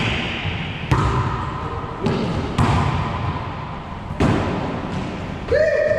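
Rubber wallyball being hit by hands and rebounding off the court walls: about five sharp smacks, each ringing on in the hard-walled racquetball court. A brief shout comes near the end.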